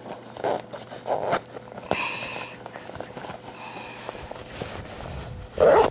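Wooden door being opened, with a couple of knocks and a high squeak about two seconds in and again, fainter, near four seconds.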